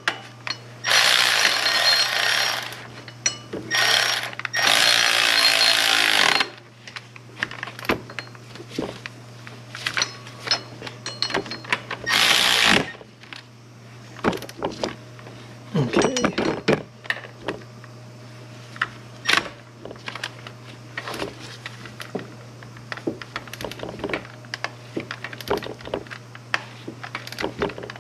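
Cordless electric ratchet running in four bursts of one to two seconds within the first half, driving home the power steering pump's mounting bolts, followed by scattered clicks and clatter of the tool and hardware. A steady low hum runs underneath.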